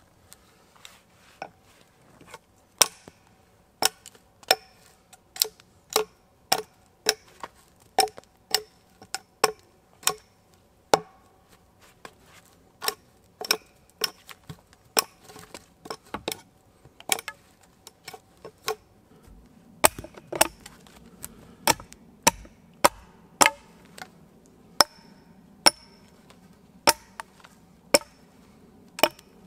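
An axe chopping wood: a steady run of sharp knocks, about two a second.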